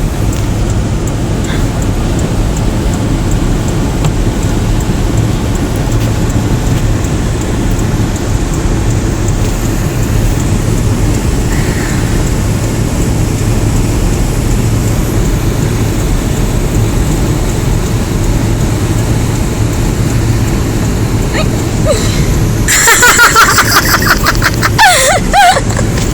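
Steady low rumble of a running car heard from inside the cabin, with a louder stretch of rustling and knocking near the end.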